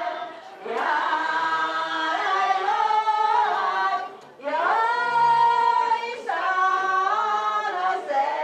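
A group of girls and women singing a traditional festival chant together, unaccompanied, in long held phrases that slide between notes, with short breaths about half a second in and about four seconds in.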